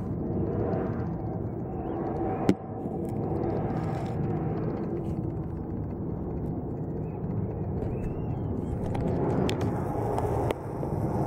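Steady low rumble of a jet airliner on its landing approach, growing a little louder and brighter near the end. There are two sharp clicks, one about two and a half seconds in and one near the end.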